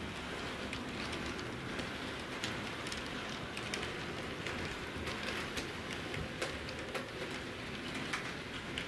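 Bachmann HO-scale electric model train running on its track: a steady whir of running noise with scattered light clicks from the wheels on the rails.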